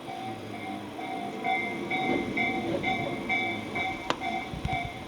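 Japanese level-crossing warning bell ringing steadily, about two dings a second, with a low rumble beneath and a sharp click about four seconds in.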